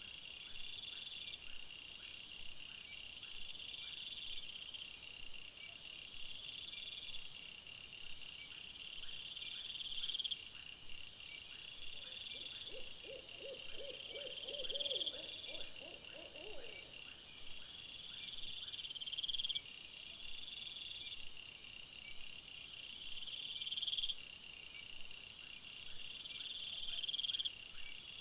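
Night chorus of crickets or similar insects: high-pitched trills and chirp series repeating every couple of seconds. About halfway through, a separate lower call, a quick run of pulses, lasts about four seconds.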